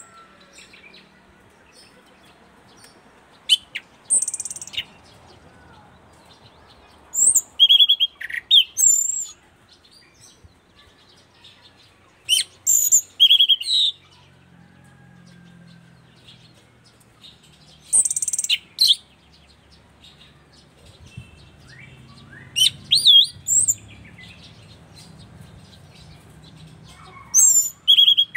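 Caged orange-sided thrush (anis cendana, a punglor ground thrush) in full song. It gives six short bursts of quick, high whistled and chattering phrases, each a second or two long, about every four to five seconds, with pauses between.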